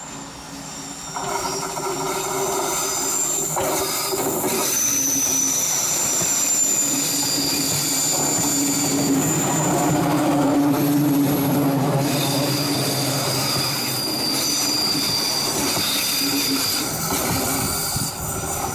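Diesel multiple-unit passenger train passing close by at slow speed, its steel wheels squealing on the rails in high, steady tones that shift pitch and come and go. Under the squeal are the hum of the diesel railcars' engines and the rumble and clack of the wheels on the track.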